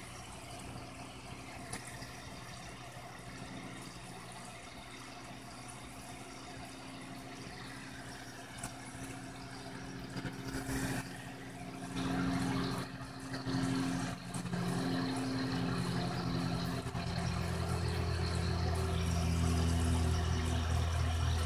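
A steady low hum with faint water noise. Soft background music of held low notes fades in during the second half and grows steadily louder toward the end.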